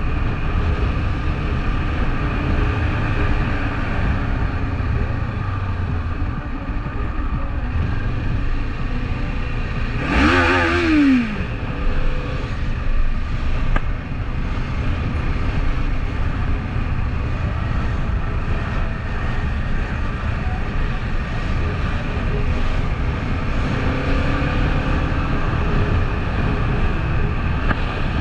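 Kawasaki Eliminator 500's parallel-twin engine running steadily while the motorcycle is ridden, with a brief pitched sound that rises and falls about ten seconds in.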